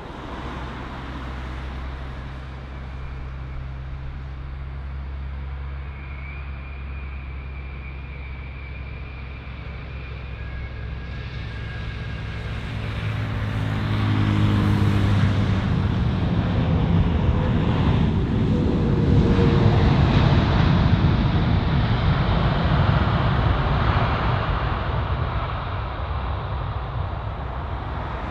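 Jet airliner engines: a steady hum and whine that swells into a loud roar about halfway through, holding for several seconds before slowly easing.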